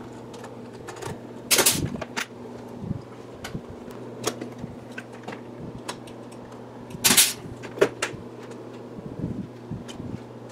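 Pneumatic pop-rivet gun pulling rivets that fasten rubber seals to engine cylinder baffles: two short, sharp bursts about five seconds apart, between small clicks of handling, over a steady low hum.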